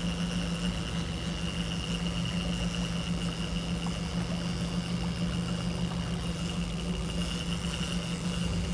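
A boat motor running steadily at slow trolling speed: an even low hum with a thin, steady high whine over it.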